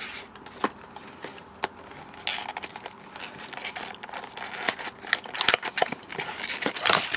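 Cardboard and plastic packaging of a trading card trial deck being handled as the box is opened: irregular scrapes, rustles and sharp small clicks, busiest near the end.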